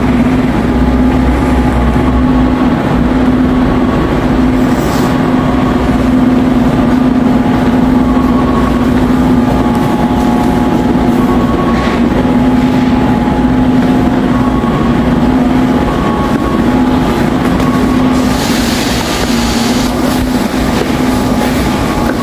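Subway train running: a steady rumble with a constant humming tone, and a brief hiss about eighteen seconds in.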